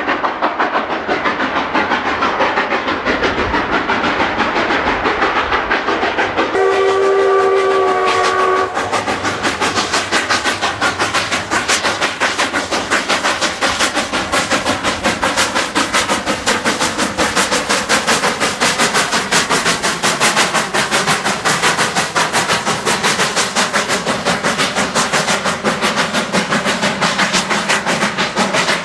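Three-foot-gauge K-36 Mikado (2-8-2) steam locomotive working a passenger train up a steep grade. About seven seconds in it gives one chime-like steam whistle blast of about two seconds. After that its exhaust beats come in a rapid, even rhythm, about four a second.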